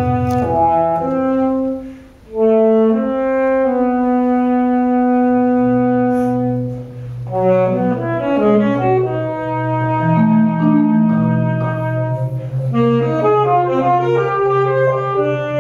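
Saxophone and marimba duet: the saxophone holds long melody notes over low marimba chords played as rolls. The sound drops out briefly about two seconds in.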